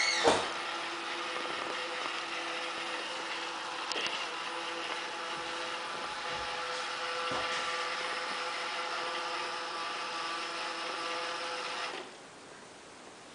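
Roomba robot vacuum running, a steady motor whir with a steady whine, with a couple of faint clicks along the way. It stops abruptly about twelve seconds in.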